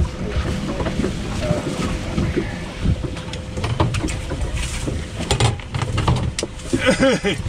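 Wind rumbling on the microphone aboard an open fishing boat, with a cluster of knocks and clatter a little past halfway as the landing net holding a landed sturgeon is set down and handled on the deck.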